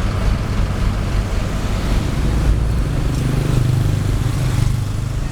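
Diesel engine of heavy paving machinery running steadily, its low hum growing stronger about three seconds in.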